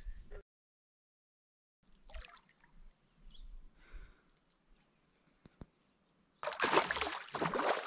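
A hooked fish thrashing and splashing at the water's surface beside a canoe, loudest over the last second and a half, after a few faint drips and small water sounds.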